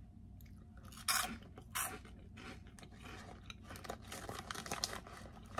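Biting into and chewing a crunchy egg-and-lentil protein crisp: two loud crunches about one and two seconds in, then a run of quicker, quieter crunches as the crisp is chewed.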